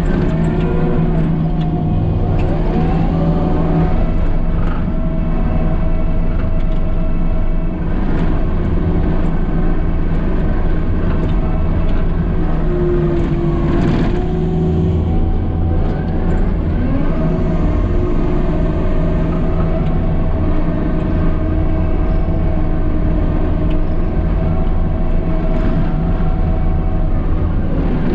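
Diesel engine of a piece of earthmoving equipment running steadily under load, with a hydraulic whine that rises and falls in pitch as the machine works.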